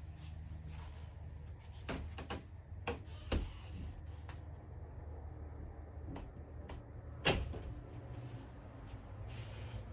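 Scattered clicks and knocks, about nine in all, the loudest a sharp knock about seven seconds in, over a low steady hum inside a travel trailer.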